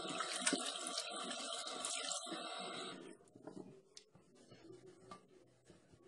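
Bathroom tap running into the sink during handwashing, shut off about three seconds in; afterwards only faint small knocks and rustles.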